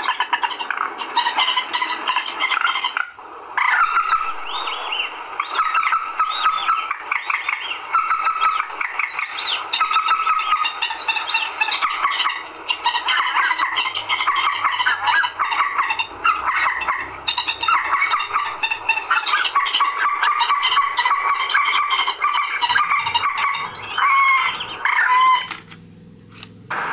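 Recorded watercock calls, the 'quẹt' call, playing from a cassette tape through a car cassette deck. It is a dense, continuous run of short chirping notes that stops abruptly near the end.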